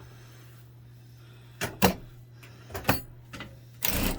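Several sharp clicks and knocks over a faint steady low hum, then a short louder rush of noise near the end.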